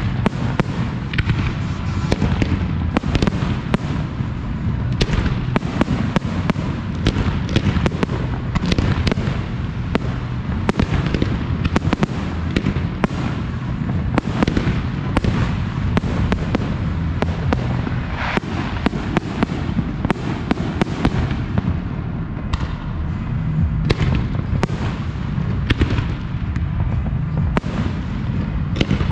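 Professional fireworks display: a dense, unbroken barrage of aerial shells bursting and cracking, many reports a second, with no let-up.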